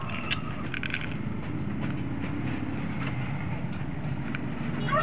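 Steady low rumble, with a few light clicks in the first second.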